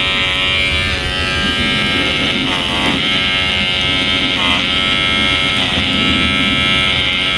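Electric hair clipper running steadily with its freshly sharpened, oiled blade, a continuous buzzing hum that dips briefly in pitch three times.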